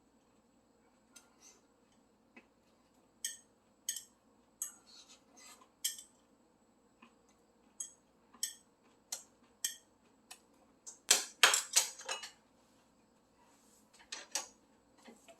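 Eating utensils clicking and clinking against dishes at a meal: scattered light clicks, with a louder run of clatter about eleven seconds in.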